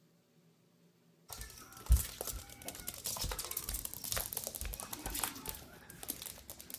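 A small animal scrabbling on a hardwood floor: rapid claw clicks and scratches that start suddenly about a second in, with one thump soon after.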